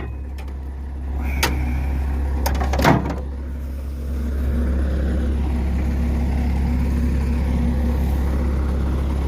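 Skid steer's diesel engine idling steadily as it warms up after a cold-weather start. Two sharp knocks come in the first three seconds, and the engine sound grows a little louder about four seconds in.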